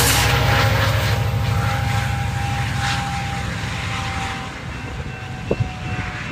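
Rear distributed-power diesel locomotive of an empty coal train, an EMD SD70MAC, droning as it moves away, its engine rumble and steady tone gradually fading.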